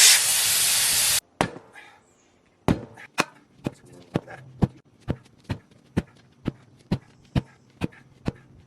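A loud burst of hissing noise for about a second, then steady repeated hammer-type blows, about two a second, struck while working a stubborn backhoe tire off its rim.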